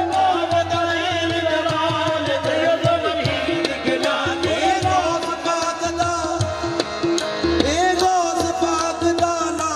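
Live Punjabi Sufi devotional singing: a male voice in long, wavering held notes over a steady drone and a driving hand-drum rhythm.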